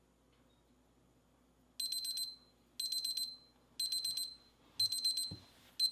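ThermoPro TP-16 digital meat thermometer's countdown timer alarm going off as the timer reaches zero: high-pitched rapid beeps in short groups, about one group a second, starting about two seconds in and cut off abruptly at the end.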